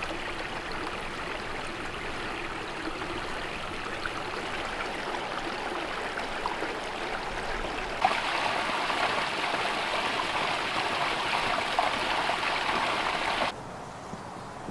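Running water of a small stream, a steady rushing. It gets louder about eight seconds in and drops suddenly near the end.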